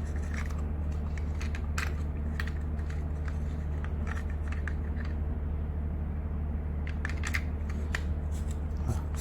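Scattered light clicks and taps of plastic parts being handled and worked into their seat, over a steady low hum.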